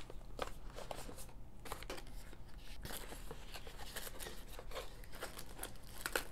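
Cardboard packaging and a plastic bag handled by hand: irregular rustling, sliding and crinkling with small taps as flaps are opened and bagged parts pulled out.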